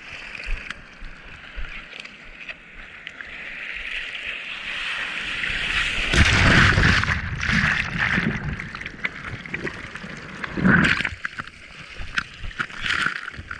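Seawater sloshing and splashing around a surfboard-mounted action camera. A rushing hiss builds over several seconds and is loudest about six seconds in, as the water washes over the camera, with sharper splashes near the end.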